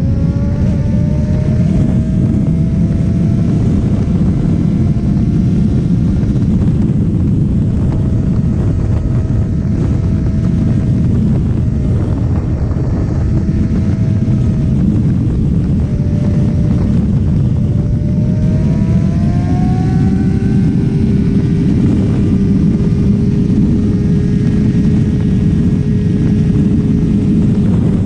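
Sport motorcycle engine heard from on board at speed under a heavy rush of wind, its pitch climbing as it accelerates. About two-thirds through it revs up again, then drops at a gear change and holds a steady cruise.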